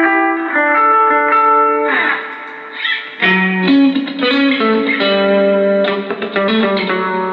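Electric guitar played through an Orange Crush 35 combo amp fitted with a new Jensen MOD10-50 10-inch speaker: a sequence of held, ringing notes, then strummed chords with quick, choppy strokes from about three seconds in.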